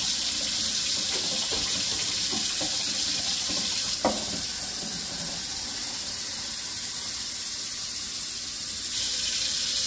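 Kitchen faucet running steadily into a stainless steel sink. About four seconds in, a plastic measuring cup knocks as it goes under the stream, and the water sounds a little softer while it fills the cup.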